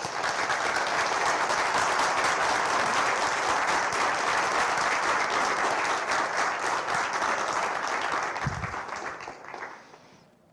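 Audience applauding steadily, then dying away about nine seconds in.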